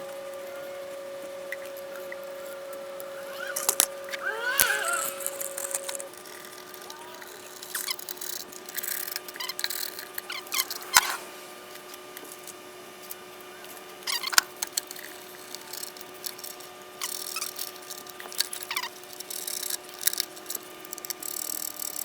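Scattered knocks, clicks and rustles of objects being handled and moved about, over a faint steady hum.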